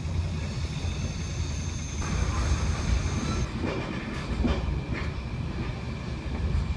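Passenger train carriage running along the track, heard at the window: a steady low rumble with a few sharp wheel clicks over the rails in the second half. A thin high whine stops about halfway through.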